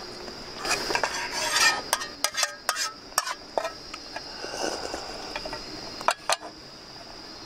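Metal spoon scraping and clinking against a stainless steel mess tin as the last of a tomato soup is scooped out and eaten, in an irregular run of scrapes and sharp clinks.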